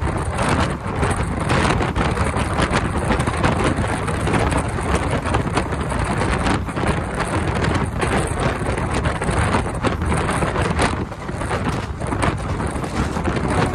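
Express passenger train running at high speed, heard from beside the coach: a steady rush of wheel and track noise mixed with wind on the microphone, with quick clicks from the wheels over the rails.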